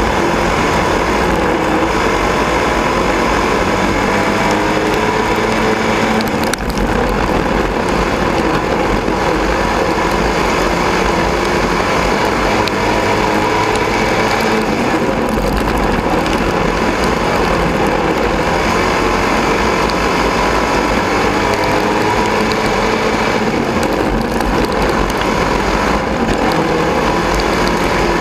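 Sport modified dirt-track race car's V8 engine heard from inside the cockpit, running hard at racing speed, its pitch repeatedly rising and falling as the car goes round the laps.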